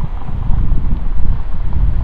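Wind buffeting the microphone: a loud, gusty low rumble that swells and eases.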